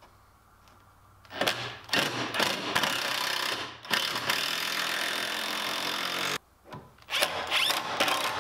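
Cordless drill driving wood screws through a pine board into a plywood table. The motor runs in two long stretches, starting about a second in, with a short pause between them.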